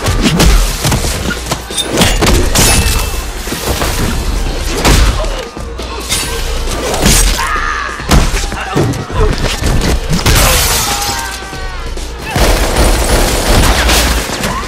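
Fight sound effects over electronic dance music with a heavy bass beat: a run of sharp punch and body-hit impacts, a shattering crash, and brief shouts and grunts.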